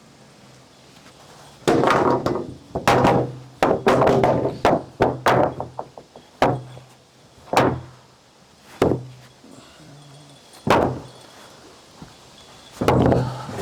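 Sawn yellow pine 2x4 boards knocking and clattering against each other as they are handled. The clatter is dense for the first few seconds, then comes as single hollow thunks a second or two apart, and bunches up again near the end.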